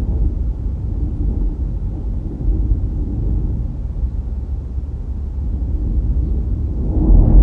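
Low, steady rumble of a car driving along a road: road and wind noise. It grows louder about seven seconds in.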